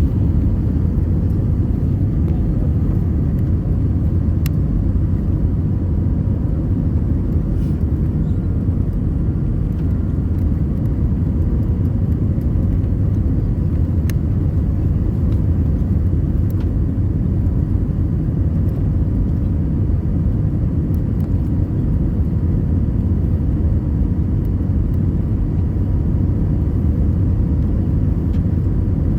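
Steady low rumble of jet engine and airflow noise heard inside an airliner cabin in flight, with a faint steady hum above it.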